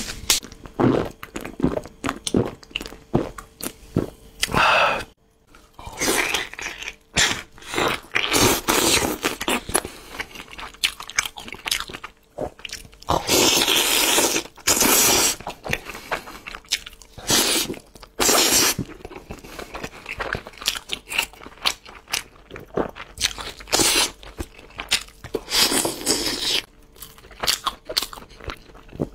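Close-miked eating of a spiced whole roast chicken by hand: a string of irregular crunching bites and chewing, with a few longer noisy stretches around the middle and near the end.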